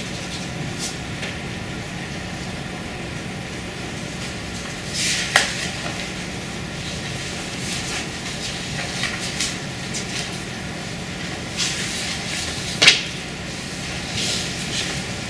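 Room tone of a lecture hall: a steady hum with scattered short rustles and clicks, the sharpest about five seconds in and again near the end.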